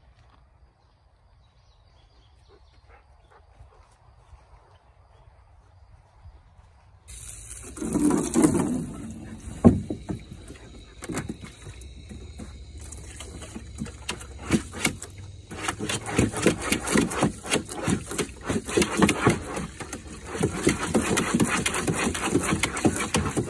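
A dog splashing and pawing at the water in a plastic stock tank filled by a running garden hose: irregular splashes and slaps, some sharp and loud. It starts suddenly about seven seconds in, after a stretch of faint outdoor sound.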